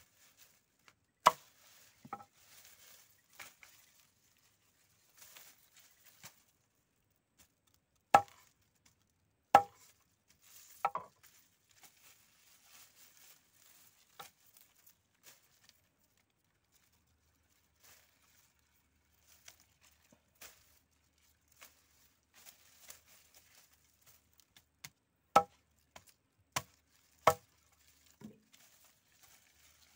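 Machete chopping through the bases of harvested lemongrass clumps on a wooden board. Sharp single chops in three clusters: two near the start, three a little before the middle, and three near the end, with faint rustling of the stalks between.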